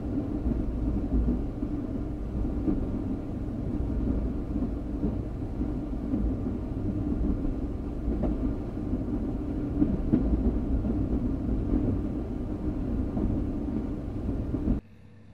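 Train passing close by: a steady low rumble that cuts off suddenly near the end.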